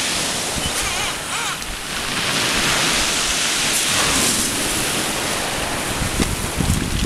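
Rough sea surf breaking and washing over a pebble beach in waves that swell and ebb, with wind buffeting the microphone.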